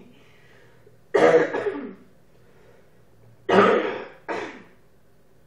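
A woman coughing: one long cough about a second in, then two more close together near the end.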